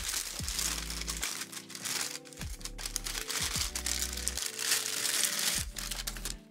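Thin plastic bag crinkling and rustling as a camera is pulled out of it, stopping near the end, over background music with a deep bass line.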